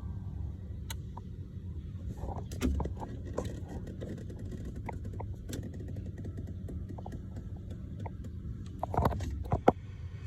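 Scattered light clicks and knocks over a steady low hum, with a few louder knocks near the end.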